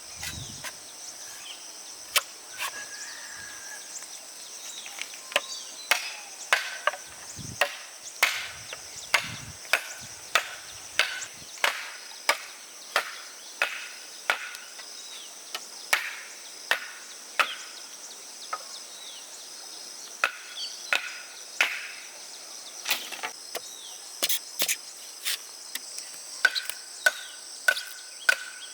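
Hand sickles cutting through rice stalks: crisp snapping strokes, one to two a second in an uneven rhythm. A steady high drone of insects runs underneath.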